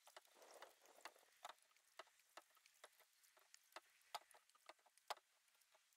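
Canoe being paddled quietly: a soft paddle stroke swishing in the water near the start, then many faint irregular clicks and ticks of water and gear against the hull, the sharpest about four and five seconds in.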